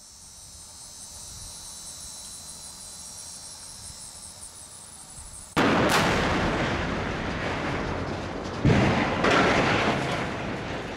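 Explosive charges severing a dragline crane's steel support cables go off in one sudden loud blast about five and a half seconds in, fading slowly as it rolls away. About three seconds later a second loud crash follows, the crane's steel boom hitting the ground. A faint steady high-pitched buzz runs before the blast.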